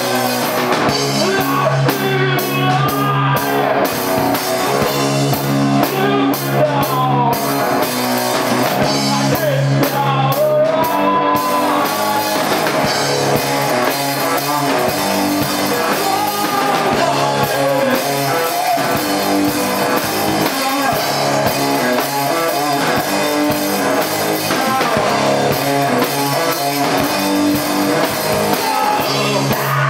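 Live rock band playing: electric guitar, bass and drum kit, with some singing.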